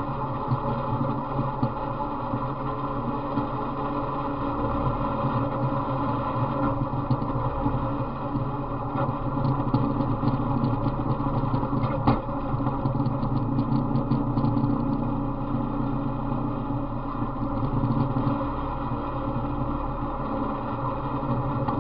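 Off-road riding mower's small engine running steadily under way, with a run of clicks and rattles around the middle. The owner says the motor has a knock.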